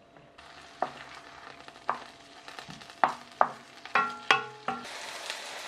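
Chopped onion and garlic sizzling in a non-stick frying pan, the onion being sautéed until golden, with a wooden spoon knocking and scraping against the pan about seven times as it is stirred. The sizzle grows louder near the end.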